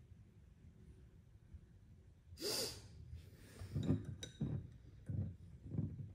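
A sharp breath out about two and a half seconds in, followed by soft low breaths and a couple of light metal clicks as a telescoping gauge is handled against a micrometer.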